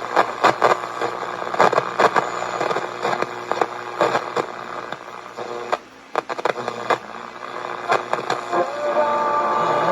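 Soundwave SW 2900 multiband radio's speaker giving AM broadcast-band static, full of crackling pops over a steady hum; near the end a station's tones come through.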